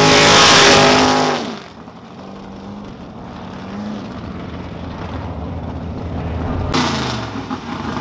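A dragster launching at full throttle, its engine loud for about a second and a half, then heard faintly and steadily from far down the strip. Near the end another drag car's engine comes in suddenly and loudly.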